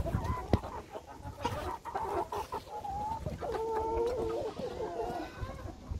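Flock of domestic chickens clucking, with many short overlapping calls.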